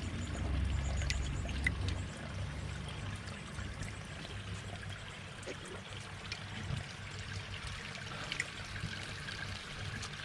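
Water trickling and splashing steadily into a garden pond, with a low rumble that fades out in the first couple of seconds.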